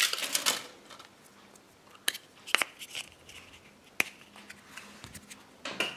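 Foil wrapper of a Kinder Surprise chocolate egg crinkling, then a few sharp small clicks and snaps as the chocolate shell is broken open to the yellow plastic capsule inside, with another short crinkle near the end.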